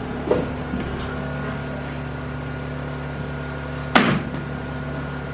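A steady mechanical hum made of several even tones, with a sharp knock about four seconds in and a lighter one near the start.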